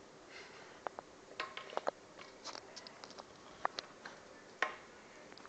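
Small dog licking the last of its food out of a stainless steel bowl: scattered wet clicks and short metallic clinks of tongue and teeth against the bowl, the loudest about four and a half seconds in.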